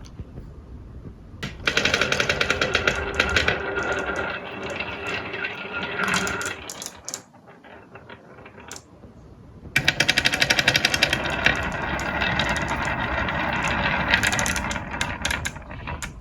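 Marbles rattling fast down a marble-run track: two long stretches of rapid clattering, the first starting about a second and a half in and the second about ten seconds in.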